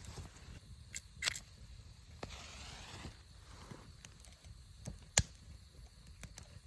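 A few scattered sharp clicks and light knocks, the loudest about five seconds in, with a brief rustling hiss a little after two seconds.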